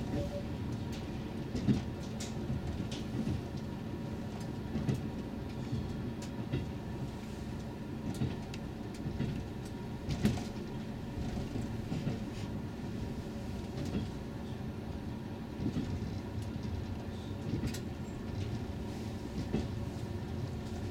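Diesel express train running at speed, heard from inside the driver's cab: a steady low rumble of engine and wheels on rail, with occasional short clicks and knocks at irregular intervals.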